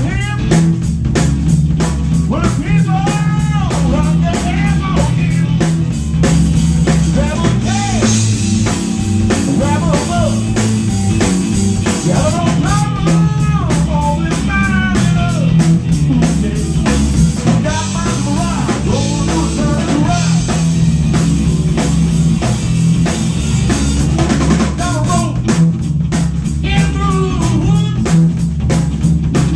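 Live blues-rock band playing: electric guitar, bass guitar and drum kit together, with a steady drum beat under bending melodic lines.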